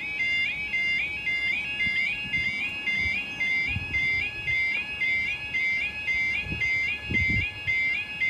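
Electronic alarm sounder giving a high, repeating stepped tone that rises in pitch each cycle, a little over two cycles a second.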